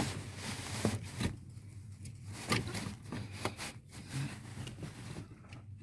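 Light handling noises of hands working an all-plastic neutral safety switch and its wiring under a steering column: scattered small clicks and knocks with rubbing and rustling.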